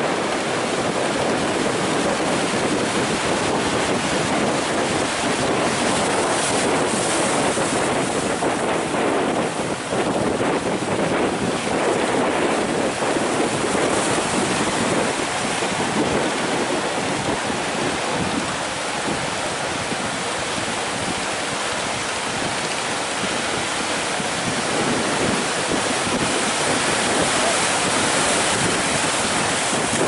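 Big ocean waves breaking and surf rushing, with wind buffeting the microphone: a steady, loud rushing noise.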